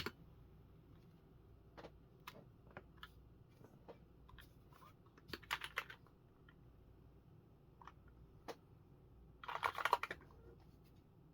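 Keystrokes on an OTD 356 Mini 60% custom keyboard with Cherry MX Black linear switches, an aluminium plate and GMK keycaps. The keys are pressed singly and sparsely, with a short quick run about five seconds in and another near the end.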